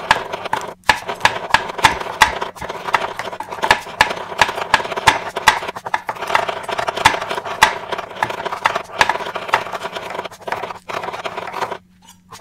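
Cleaver blade knocking repeatedly on a wooden cutting board as garlic is minced: a quick, irregular run of sharp chops.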